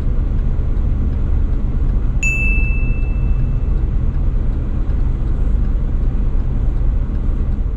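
Steady low rumble of a car, heard from inside the cabin. About two seconds in, a single bright bell ding rings and fades over about a second: the sound effect for the notification-bell graphic.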